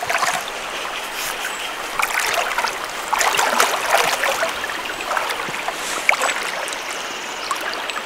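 Shallow river water running and splashing around the legs of people wading, with irregular small splashes.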